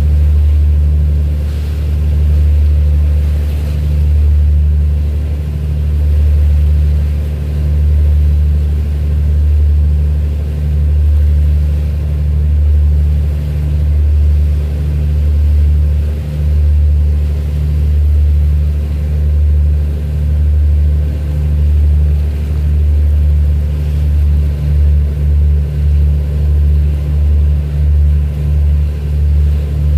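A boat engine running with a loud, steady low drone that swells and fades about every two seconds, pulsing faster, about twice a second, in the last few seconds.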